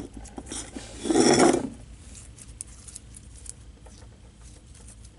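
Homemade glue slime, still a little sticky, being pulled from a bowl and kneaded by hand: rubbing and squishing, with one louder, longer rub about a second in, then faint small clicks.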